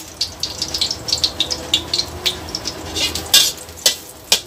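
Smashed garlic cloves sizzling and crackling in a little hot oil in a stainless steel wok, with a metal spatula scraping and tapping the pan as they are stirred; a few sharper clicks stand out, the loudest a little after three seconds in.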